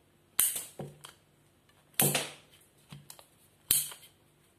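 Hand pipe cutter working through a plastic fusion-weld water pipe: three sharp snaps about a second and a half apart, each with a short fading tail, with a few fainter clicks between.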